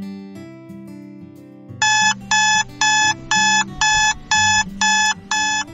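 Soft background music, and about two seconds in an electronic wake-up alarm starts beeping over it: loud, even beeps of several tones at about two a second.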